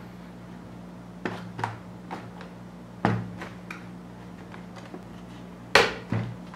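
Plastic toy-track pieces being pressed and snapped onto the track set's plastic motorized base: a scatter of sharp plastic clicks and knocks, the loudest about six seconds in, over a faint steady low hum.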